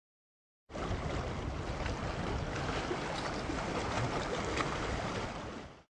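Bay water washing and splashing over shoreline rocks, with wind rumbling on the microphone. It starts suddenly less than a second in and fades out near the end.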